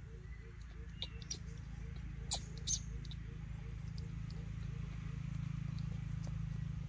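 Baby monkey eating a banana: a few soft clicks and smacks of chewing, the loudest two close together near the middle, over a steady low hum.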